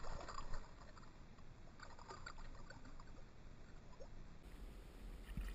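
Small fish splashing in shallow pond water as it is released by hand at the bank, with a few soft splashes and drips. A low rumble comes in near the end.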